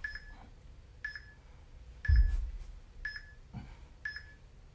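Workout interval timer beeping once a second, with five short high beeps counting down to the start of an exercise interval. A low thump comes about two seconds in.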